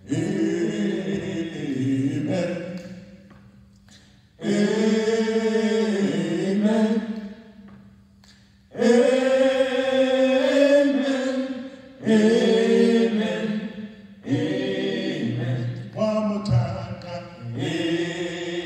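Male vocal quartet singing a cappella in harmony, in sung phrases of a few seconds each with short breaks between them.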